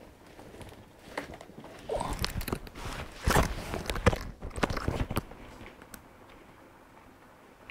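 Scuffle of two cats fighting on a bed and being pulled apart by hand: a burst of rustling and sharp knocks from about two to five seconds in, with a brief pitched cry near two seconds.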